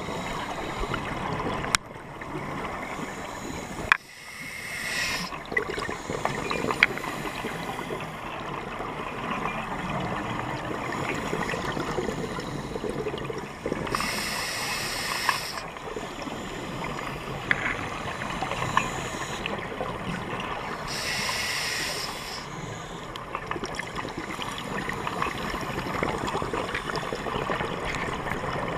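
Underwater sound of a scuba diver breathing through a regulator: three hissing, bubbling exhalations, each about a second long, several seconds apart. Under them runs a steady underwater hiss with scattered sharp clicks.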